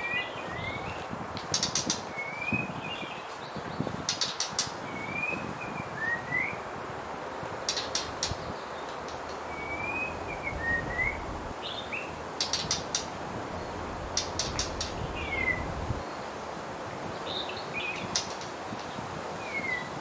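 White-rumped shama calls: short slurred whistles every second or two, mixed with quick runs of three or four sharp clicking notes. A steady background hiss runs underneath.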